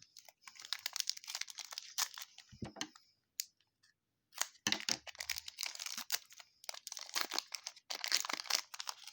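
Wrapper of a 2020 Donruss Optic baseball hobby pack being torn open and crinkled by hand, in three spells of crackling with short pauses between.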